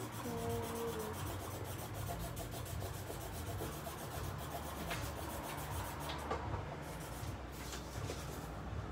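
Marker tip rubbing and scratching across paper in repeated drawing strokes.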